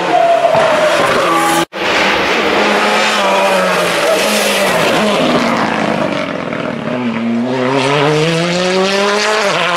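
Rally car engines running hard at full throttle, their pitch climbing and falling with gear changes. The sound cuts out for an instant a little under two seconds in and picks up on another car. Near the end, one long rising run ends in a sudden drop at an upshift.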